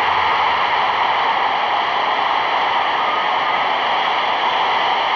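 Stadium crowd cheering a goal in one loud, steady roar.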